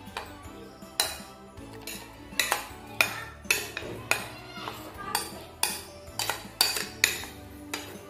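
Spatula scraping and knocking against a plastic mixing bowl while thick batter is scraped out: a string of sharp, unevenly spaced clicks over soft background music.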